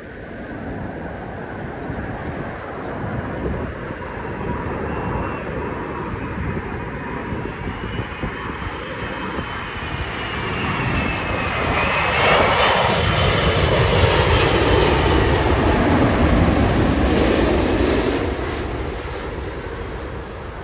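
Jet airliner on landing approach passing low and close, its engines running with a whine over a broad roar. The sound swells, is loudest about two-thirds of the way through as the plane goes by, then fades.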